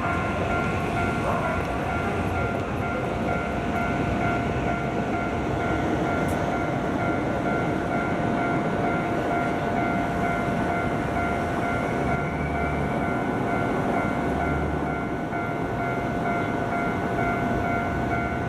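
Japanese level crossing warning bell ringing in an even, repeating pulse while a train runs through the crossing with a steady rumble.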